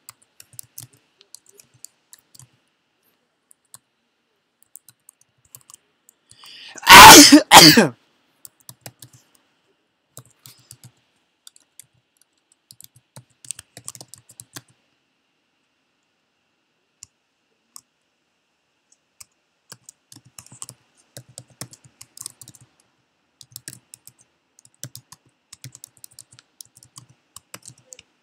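Typing on a computer keyboard, faint scattered keystrokes, interrupted about seven seconds in by a loud cough in two quick bursts.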